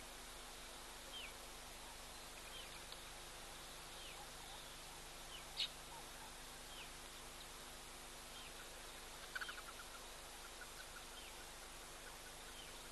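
Small birds calling over steady background hiss: short falling chirps about once a second, a louder sharp call about five and a half seconds in, and a quick stuttering run of notes a little past nine seconds.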